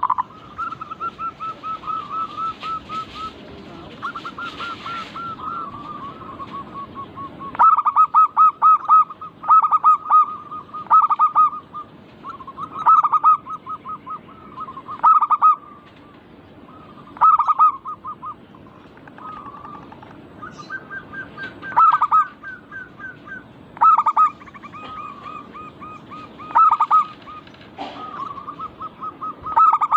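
Zebra doves (perkutut) cooing: phrases of rapid, pulsed coo notes. The notes run softer for the first several seconds, then come in louder bursts about every two seconds.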